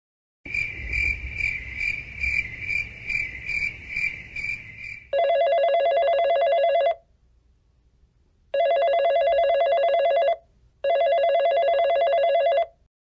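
Telephone ringing: first a high pulsing trill for about four seconds, then three rings of about two seconds each, steady and lower in pitch, with short pauses between them.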